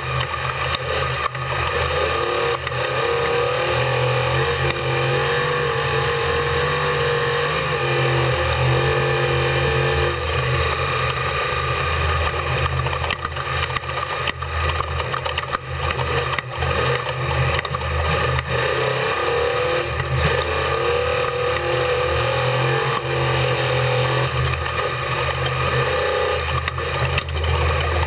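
Unlimited-class desert race truck heard from on board, its engine running steadily with small rises and falls in pitch, mixed with frequent sharp knocks and rattles.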